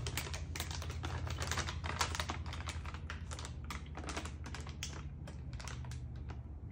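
Plastic candy bag crinkling and rustling in quick, irregular clicks as hands open it and dig into it, over a steady low hum.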